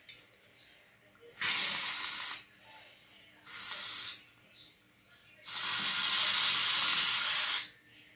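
Aerosol spray can hissing in three sprays: one of about a second, a short half-second one, then a longer one of about two seconds.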